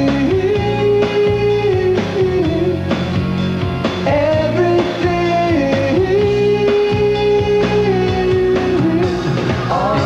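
A rock song with a singer holding long notes over guitar and drums.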